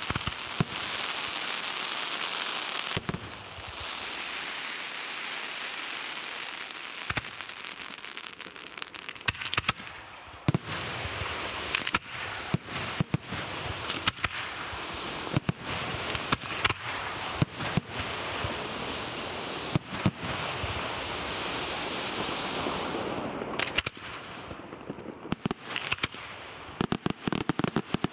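Aerial firework shells bursting one after another over a continuous crackling hiss from glittering stars. The bangs come thick and fast near the end.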